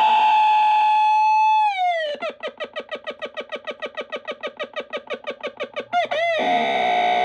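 Circuit-bent JCPenney portable cassette player's speaker putting out glitch sounds from its bends: a steady buzzy electronic tone slides down in pitch about two seconds in. It breaks into a fast, even stutter of about eight pulses a second, then a few quick swooping warbles lead back into a steady tone near the end.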